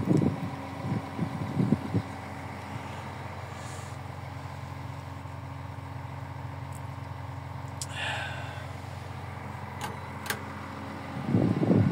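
Steady hum of a diesel engine idling, with a few knocks in the first two seconds, a brief rustle about eight seconds in and two sharp clicks shortly after.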